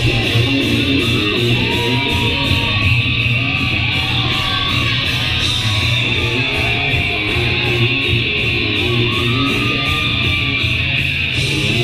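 Heavy metal band playing live: distorted electric guitars and bass over drums keeping a steady beat, with no vocals.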